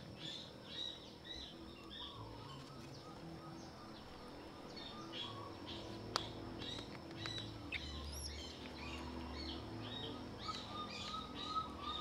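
Small birds chirping repeatedly and fairly faintly, with a single sharp click about six seconds in.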